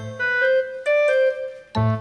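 Background music: a keyboard melody of separate struck notes, a new note about every second.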